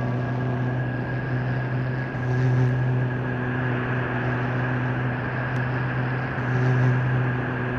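Live noise music from a no-input mixer, software synth and looped clarinet setup: a steady low drone under a dense wash of hiss-like noise with a faint high held tone, swelling in loudness twice, about two and a half and seven seconds in.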